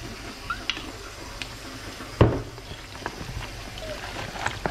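Hands mixing diced raw goose meat through a honey soy marinade in a plastic tub: small scattered clicks and crackle, with one sharp knock a little over two seconds in.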